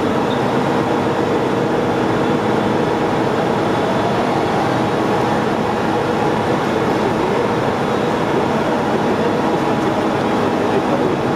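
Loud, steady machinery noise of a newspaper printing plant, a dense running hum with several sustained tones that does not change.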